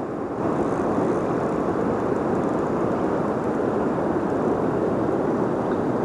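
Steady rushing roar of high floodwater pouring over and past a dam.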